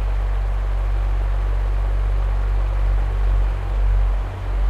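Electric fan running: a steady low hum under an even rush of air, with two brief dips in level near the end.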